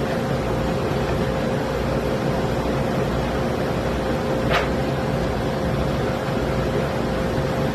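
Electric router motor running steadily at high speed, cutting a groove in the edge of a zelkova wood board, with one brief click about four and a half seconds in.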